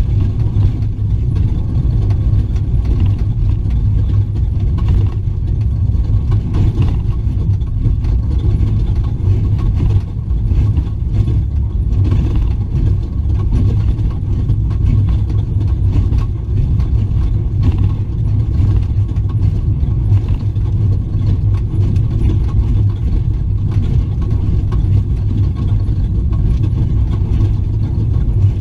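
Off-road race truck running hard, heard from inside the cab: a steady deep engine and drivetrain rumble with constant rattling and clattering from the truck's body and fittings.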